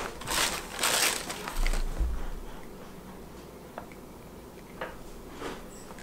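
Plastic bubble-wrap bag crinkling and cables being handled, with a few rustles and a low bump in the first two seconds or so. After that it goes quiet apart from a couple of faint clicks.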